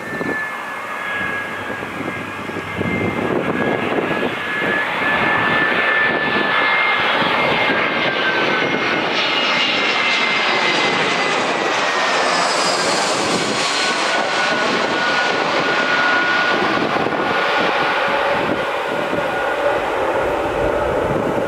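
Airbus A319 jet engines on landing approach, passing low overhead. A loud rushing noise builds a few seconds in, and a high engine whine drops in pitch about halfway through as the plane passes overhead and flies away.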